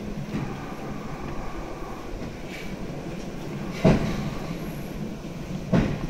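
Cable car rolling on its rails with a steady rumble, broken by two loud knocks about two seconds apart in the second half.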